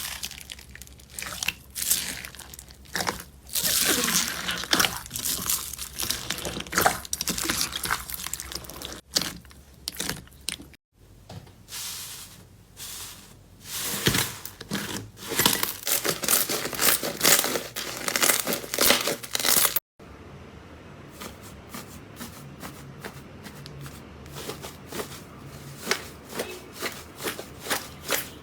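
Slime being squeezed and poked by hand, with crackling, crunchy pops and squishes. The sound changes at two cuts, about 11 and 20 seconds in, and the last part is quieter, with a run of small clicks.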